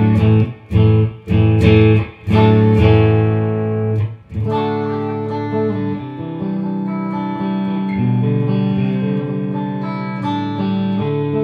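Squier Stratocaster Deluxe electric guitar through a Mesa/Boogie Mark Five:25 amp on its clean channel, dry with no compressor. A run of short strummed chords, about two a second, then from about four seconds in, chords and picked notes left to ring.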